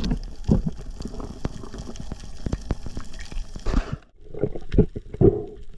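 Underwater sound picked up during a spearfishing freedive: rushing water with many sharp crackling clicks and low thumps. About four seconds in it drops away suddenly to a quieter stretch with a few soft thumps.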